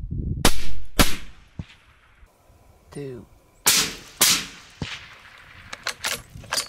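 Scoped hunting rifles fired at feral hogs: two sharp cracks half a second apart about half a second in, and two more about three seconds later. A short falling cry comes between them, and lighter clicks and knocks follow near the end.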